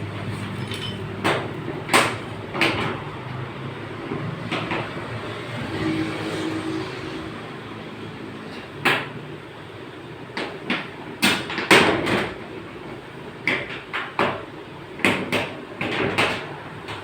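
Irregular hammer knocks on the sheet-metal body panels of an accident-damaged Suzuki Alto during dent repair, coming more often in the second half.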